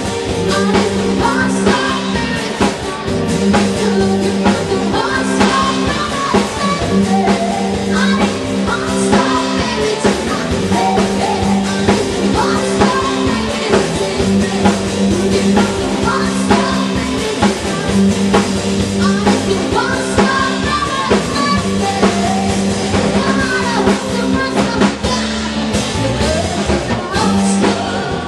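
Live band playing with women singing into microphones over a drum kit and electric guitar, with a steady beat.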